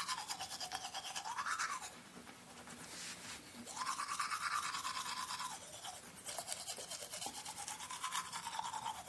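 Toothbrush scrubbing teeth in quick back-and-forth strokes, a wet bristly rasp that shifts in pitch as the mouth moves. It eases off about two seconds in and picks up again near the four-second mark.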